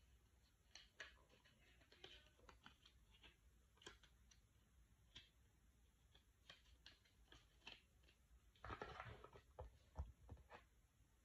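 Faint handling sounds of a phone box's paper and cardboard packaging: scattered light clicks and rustles, with a louder rustle and a soft knock near the end as the charging cable is taken from the box tray.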